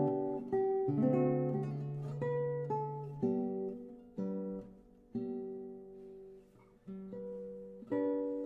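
Solo guitar, a replica of a Panormo early-nineteenth-century romantic guitar, playing a slow classical piece in plucked notes and chords that ring and fade. The playing softens to quiet single notes in the middle, then louder chords come in near the end.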